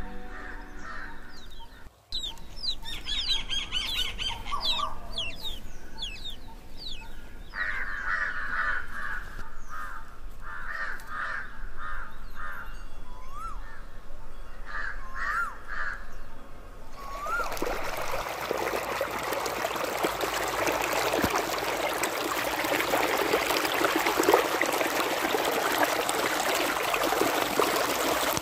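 Birds chirping and calling, with quick repeated notes. About seventeen seconds in, this cuts to the steady rush and splash of tubewell water pouring across a flooded field.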